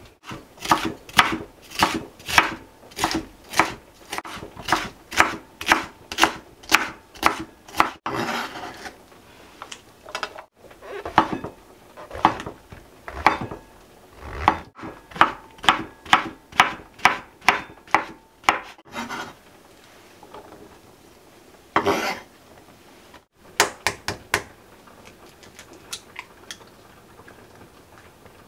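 Chef's knife chopping green bell pepper and then slicing king oyster mushroom on a wooden cutting board. Each stroke is a sharp knock of the blade through the vegetable onto the board, coming about two a second in runs with short pauses, and thinning to a few scattered strokes in the last part.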